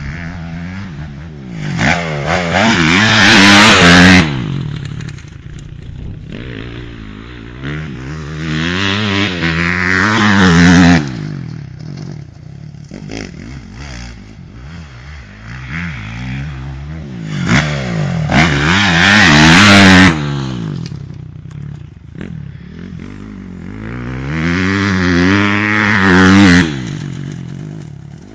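Honda 250cc four-stroke motocross bike revving hard and falling back off the throttle as it laps a dirt track, passing close four times with the engine pitch climbing and dropping, then fading between passes.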